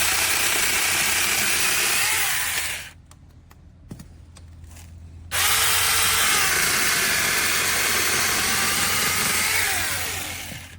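Mini battery-powered chainsaw running in two bursts of a few seconds each, cutting wood, its pitch dipping and recovering under load. The first burst stops about three seconds in. The second starts a couple of seconds later and winds down near the end.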